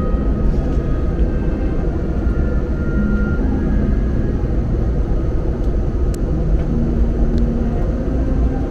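Airliner cabin noise in flight: the steady low rumble and rushing of the jet engines and airflow, heard from inside the cabin, with a couple of faint light clicks near the end.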